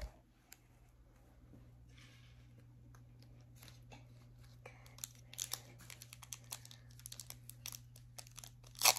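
Foil Pokémon card booster pack being peeled open and crinkled by hand: quiet, scattered crackles and ticks that grow busier in the second half, with a louder crinkle near the end.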